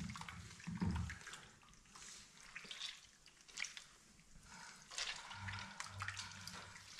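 Raw beef being washed by hand in a frying pan of water: faint wet splashes and drips as the pieces are squeezed and lifted out.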